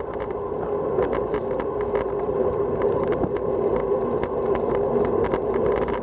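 Wind rushing over the microphone and tyre noise from a road bicycle descending at speed on asphalt, with scattered clicks and rattles from bumps in the road. It gets louder about a second in as speed picks up.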